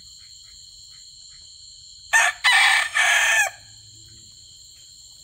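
A gamefowl rooster crowing once, about two seconds in: a short first note followed by a longer held call, lasting about a second and a half in all.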